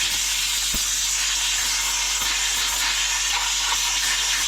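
Compressed air blowing a steady, loud hiss to clear dust out of a variable frequency drive (VFD).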